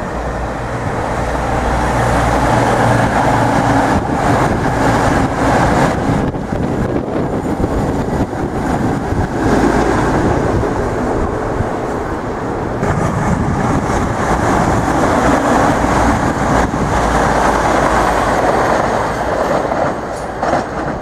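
Class 222 Meridian diesel multiple unit running through at speed: the underfloor diesel engines droning under the rumble of wheels on the rails, loud and steady, easing a little near the end.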